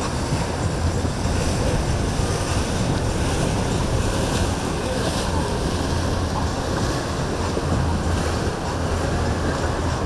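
Steady wind noise buffeting the microphone over surf and a low rumble of boat engines at a rough inlet.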